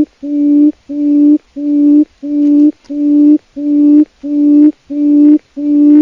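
Quail calling: a low hooting note repeated about one and a half times a second, each note swelling and then cutting off abruptly.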